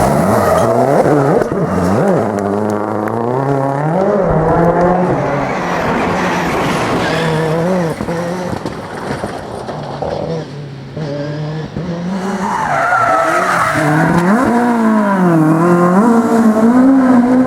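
Rally car engine revving hard, its pitch climbing and dropping again and again through gear changes and lifts, with tyre squeal. It eases briefly about two-thirds of the way in, then winds up again.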